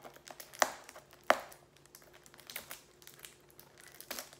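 Cellophane shrink-wrap on a card-deck box crinkling as fingers pick and tear at it, with scattered small crackles and two sharp snaps a little over half a second apart near the start.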